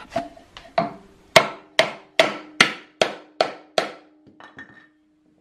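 Rubber mallet hammering a wooden block against a plywood belt pulley's hub, driving the pulley off an electric motor shaft. About nine sharp blows, roughly two and a half a second, then a few light taps near the end.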